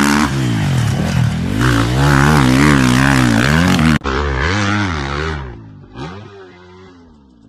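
Dirt bike engine revving up and down over and over as it is ridden hard. About four seconds in the sound cuts off abruptly and the revving picks up again, then fades away toward the end.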